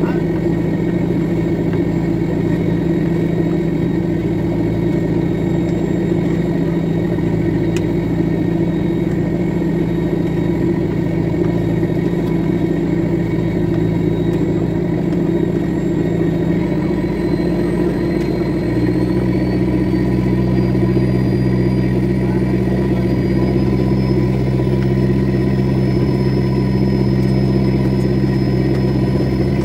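Fishing boat's inboard engine running steadily under way: a constant drone whose low note shifts a little past halfway, with a faint high whine slowly rising in pitch.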